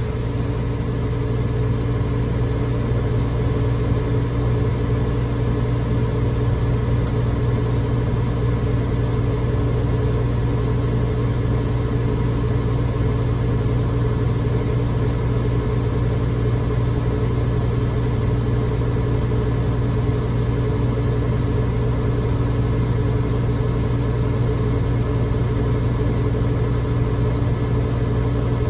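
Tractor diesel engine running at a steady, even speed, with a constant low hum.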